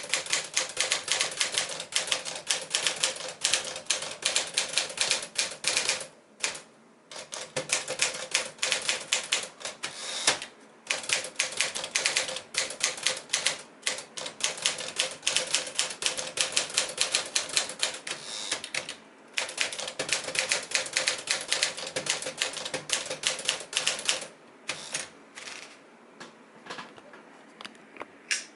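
1959 Smith-Corona Sterling manual portable typewriter being typed on at a fast, steady pace, its typebars striking the paper in quick succession, with a few brief pauses; the keystrokes thin out near the end.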